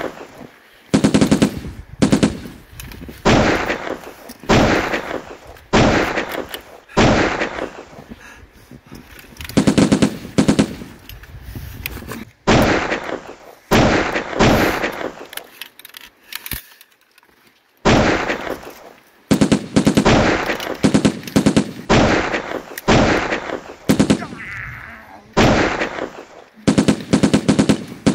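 Repeated bursts of automatic gunfire, each burst trailing off in an echoing tail, with a short lull about two-thirds of the way through.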